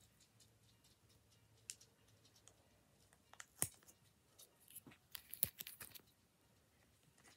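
Adhesive tape being picked and peeled off a plastic photo-card sleeve: scattered small clicks and crackles of plastic and tape, with one sharp snap a little past the middle and a quick run of crackles about five to six seconds in.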